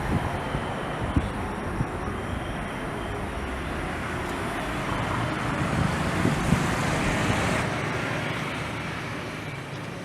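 Qantas Airbus A330's jet engines at takeoff power: a steady broad rumble and hiss that swells to its loudest about six to seven seconds in, then fades as the aircraft moves away.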